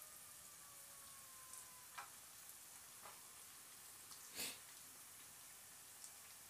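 Wontons frying gently in oil that is only just starting to bubble, a faint sizzle with scattered small pops. About four and a half seconds in there is a louder crackle as another wonton goes into the oil.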